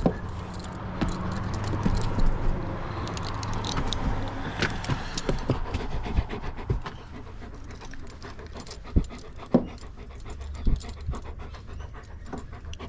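German shepherd panting up close, with metal clinks and jingles from its leash clip, chain lead and tags as it is handled.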